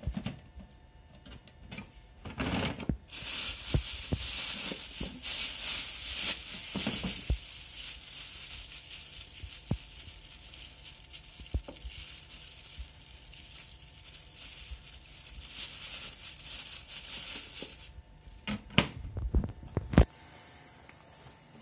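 Hands working a plastic diaper pail while its refill is changed: clicks and knocks of the plastic lid and front door, and a long stretch of rustling from about 3 s to 18 s as the refill cassette and its bag film are handled. A few sharp clicks come near the end.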